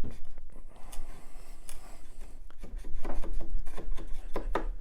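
Hand chisel paring pallet wood close to a marking-gauge line: a run of short scraping cuts and light clicks, busier in the second half.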